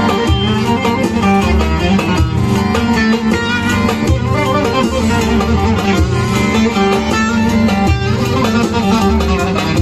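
Instrumental music of a Turkish folk song: plucked string instruments play the melody over a low, pulsing accompaniment, with no singing.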